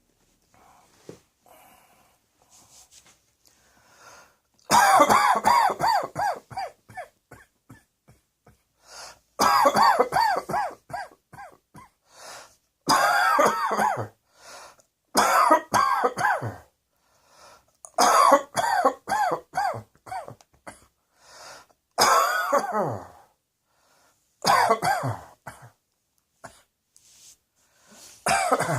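A person coughing in fits: about eight bouts of several quick coughs each, a few seconds apart. The first bout comes about five seconds in, after quiet breaths, and faint breaths fill the gaps between bouts.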